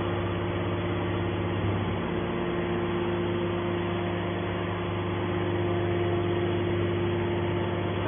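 Automatic hydraulic scrap metal baler's Siemens electric motor and hydraulic pump running with a steady pitched hum while the lid cylinder swings the top lid open. The higher tone of the hum grows stronger about halfway through as the lid moves.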